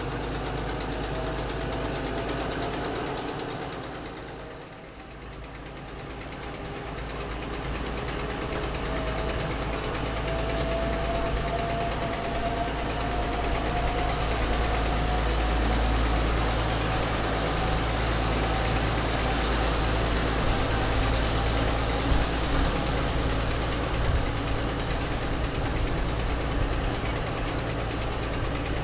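GE 45-ton diesel locomotive running under way, heard from aboard: a steady low engine rumble with a faint tone that slowly rises in pitch as the train moves along. The sound dips briefly about five seconds in, then builds again.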